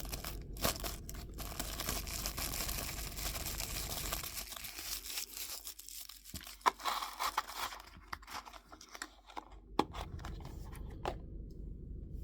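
Knife packaging being torn open and crinkled by hand: a steady rustle for the first few seconds, then scattered crackles and clicks.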